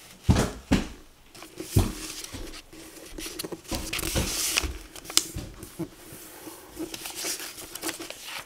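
A sheet of paper rustling and scraping as it is folded by hand and its creases pressed flat against a table, in irregular short strokes, with a couple of sharper knocks in the first two seconds.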